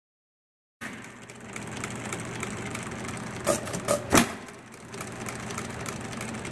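Scale-model Briggs double side-shaft hit-and-miss gas engine running on propane, starting about a second in: its valve gear and latch clicking steadily while it coasts, then three sharp firing pops in quick succession about three seconds in, and another cluster beginning at the end. It is set to fire on the second compression stroke when the latch-out releases.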